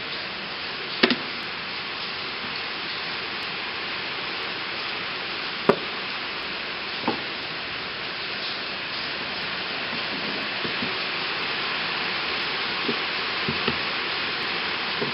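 Steady hiss of rain, with a few short sharp knocks over it: two about a second in, one near the middle, and several smaller taps toward the end.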